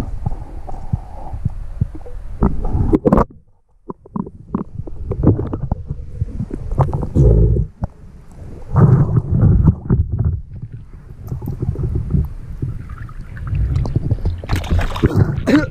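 Water sloshing and splashing around a waterproof camera as it moves between underwater and the surface, with muffled rumbling and gurgling and several louder splashes as a speared snapper is brought up and handled at the surface.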